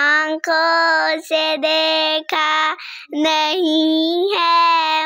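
A young girl singing an Urdu naat, a devotional song in praise of the Prophet Muhammad, as a single voice in long held notes with short breaths between phrases.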